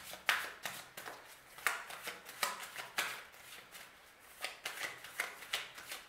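A deck of tarot cards shuffled by hand: an uneven run of soft clicks and slaps as cards slide off and drop onto the deck, with a few louder snaps.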